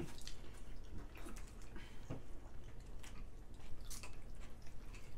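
People chewing and biting into sauced chicken wings, with a few short wet smacks and clicks scattered through.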